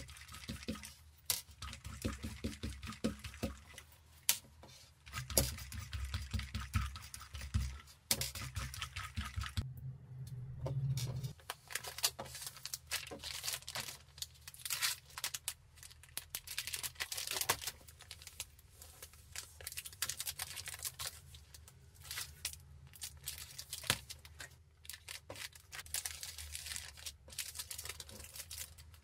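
A sticky lint roller is rolled back and forth over a fabric pouch, making a rhythmic crackling peel. From about ten seconds in, a clear plastic packaging bag crinkles as a tote bag is slid into it and handled, and paper wrapping rustles near the end.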